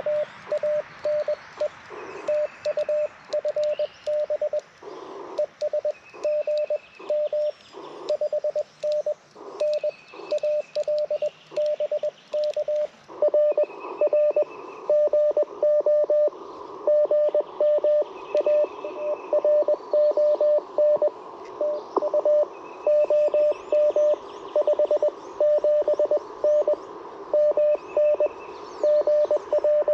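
Morse code (CW) from an Icom IC-705 transceiver's speaker: a steady single-pitch tone keyed on and off in dots and dashes over shortwave band hiss, louder from about halfway through. A second, fainter and higher-pitched Morse signal comes and goes behind it.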